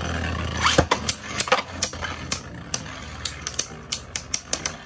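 Two Beyblade Burst tops spinning in a clear plastic stadium: a low steady whirr for about the first second, then a run of sharp plastic clacks, several a second, as the tops collide.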